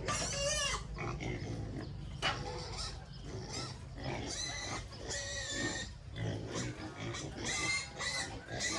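Pigs squealing, several short high-pitched squeals a second or two apart, with lower grunting between them.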